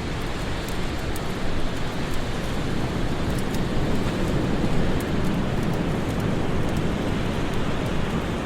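Steady winter wind blowing, swelling a little and easing, with faint irregular crackles from a fire.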